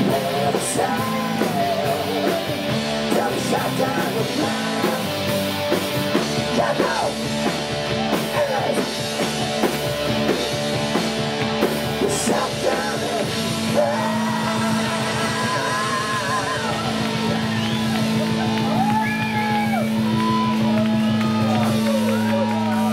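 Live rock band playing, with a singer singing and shouting over guitar and bass. The second half settles into a long held chord with vocals over it, and the chord stops right at the end.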